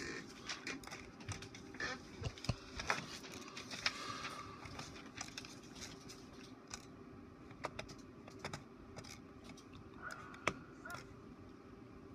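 Scattered light clicks and taps, irregularly spaced, over a steady low hum.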